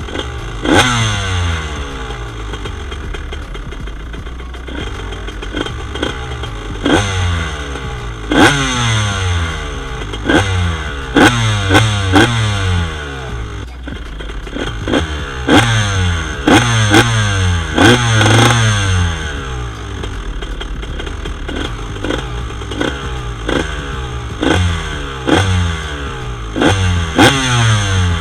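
A 1999 Honda CR125's single-cylinder two-stroke engine, breathing through a Pro Circuit Platinum expansion pipe and R304 silencer, idling and being blipped on the throttle over and over. Each rev shoots up sharply and sinks back to idle, some in quick pairs and triples, with a few seconds of plain idle in the middle.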